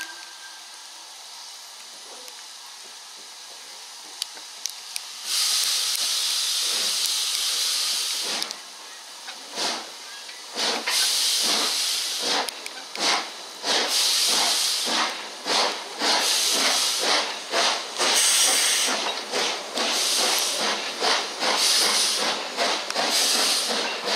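LMS Black Five 4-6-0 steam locomotive starting away with its train. After a few seconds of quieter hiss, a loud hiss of steam starts about five seconds in. Then the exhaust beats begin, slow at first and quickening as the train gathers speed.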